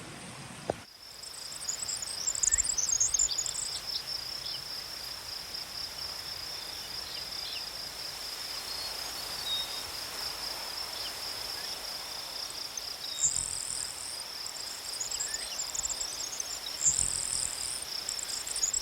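Crickets or other insects chirring in one steady, high-pitched, slightly pulsing drone, with brief higher chirps breaking in a few times.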